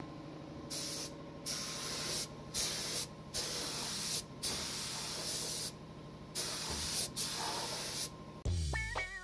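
Gravity-feed compressed-air spray gun spraying polyurethane coating: a high hiss in repeated bursts of about a second each, roughly eight trigger pulls with short gaps, over a steady low hum.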